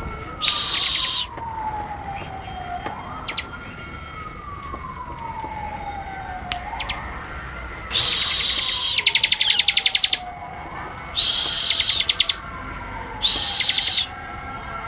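Bar-winged prinia (ciblek) song: loud, harsh, buzzy high-pitched bursts with rapid clicking trills, coming in four spells about a second or two long. Under it a fainter siren-like tone rises quickly and slides slowly down, repeating about every four seconds.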